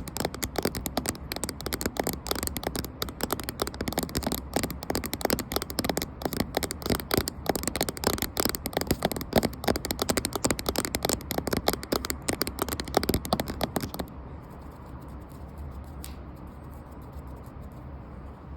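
Rapid, dense tapping on a camera, many taps a second, which stops about three-quarters of the way through, leaving a faint steady hiss.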